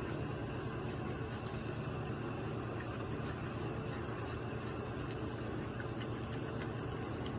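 Steady low mechanical hum of a running motor or engine, unchanging throughout.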